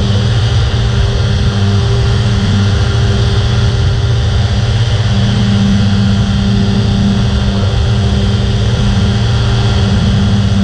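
The Rotax 503 two-stroke twin engine of an ultralight flying boat running steadily in flight.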